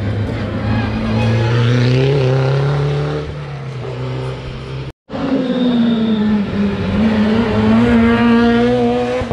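Rally car engine at high revs, the note climbing then dropping as the driver lifts. After an abrupt cut about five seconds in, a rally car's engine is heard again, its note rising as it passes close.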